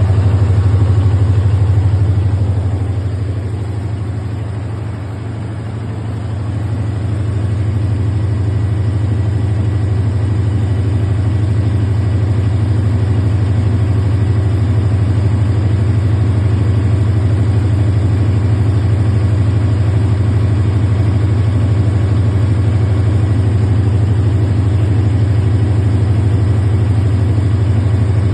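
Diesel engine of a 1000 kVA generator set running steadily with a strong low drone. It briefly drops in level for a few seconds, about four seconds in, then returns.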